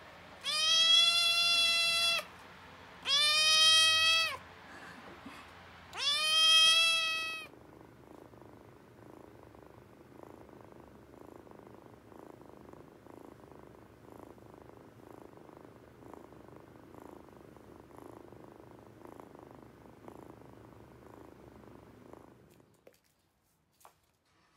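A black-and-white kitten meows loudly three times, each call arching up and falling away, then purrs quietly and steadily with an even pulse for about fifteen seconds.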